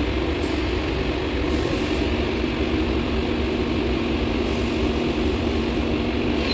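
Steady drone of workshop machinery with a low rumble and a faint hiss; a steady hum tone joins about two seconds in.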